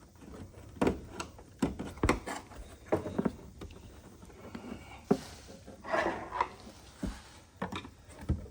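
Screwdrivers prying at the rear hatch lock cylinder of a Fox-body Mustang: irregular metal clicks and taps, with a short scrape about six seconds in, as the stuck cylinder is worked loose.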